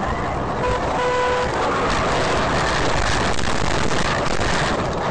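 A car horn sounds twice briefly. Then a loud rushing rumble follows as the car leaves the road and runs across a dry grass field.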